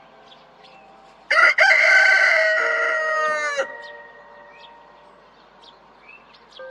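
A rooster crowing once, a loud call of about two and a half seconds with a short break near its start.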